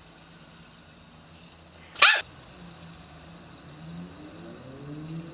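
A dog yips once, sharply and briefly, about two seconds in.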